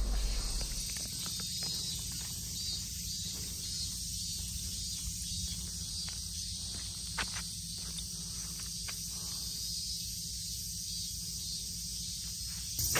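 Steady, high-pitched chorus of insects droning in the open air, with a few faint ticks or footsteps.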